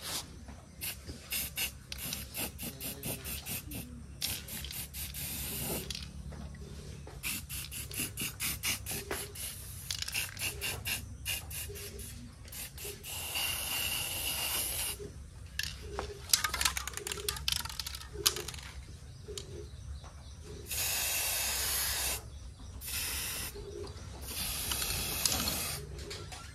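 Aerosol spray-paint can hissing in many quick short bursts, with several longer sprays of one to two seconds, as red paint goes onto a tractor wheel rim.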